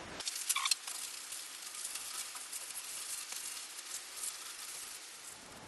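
Paper rubbing over a cast iron machine table, wiping and buffing off machine wax: a scratchy, uneven hiss with no low end.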